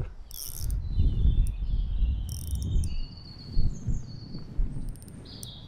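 Ultra-light spinning reel's drag buzzing in short bursts as a hooked fish pulls line, over a low rumble of rod handling during the first few seconds.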